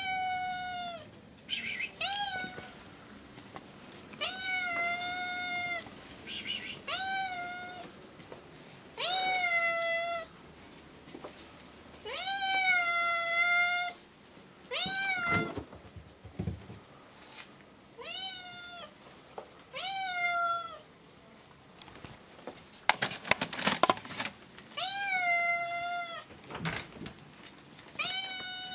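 A black-and-white domestic cat meowing over and over, about ten long meows, each rising at the start and some drawn out for about two seconds. A few sharp clicks, louder than the meows, come about two-thirds of the way through.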